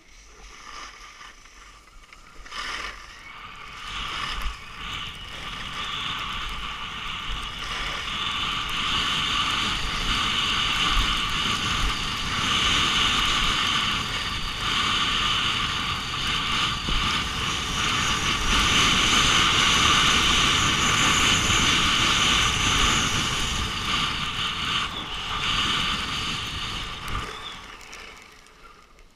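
Skis hissing and scraping over groomed snow, with wind rushing past the camera, while skiing downhill. The rushing builds as speed picks up, stays loud through the middle and fades near the end as the skier slows.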